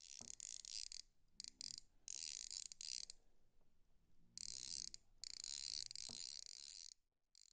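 Fly reel's click-and-pawl drag buzzing in about six bursts, some brief and some over a second long, with short pauses between. The sound is a high-pitched rapid ratcheting.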